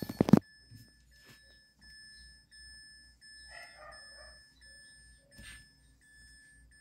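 A dog barks once, briefly and loudly, at the very start. After that there is only faint background, with a faint, evenly pulsing electronic tone.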